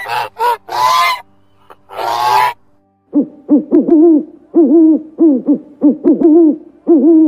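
Geese honking, four harsh calls in the first two and a half seconds. After a short pause, an owl hoots repeatedly, about two to three short hoots a second, each rising and falling in pitch.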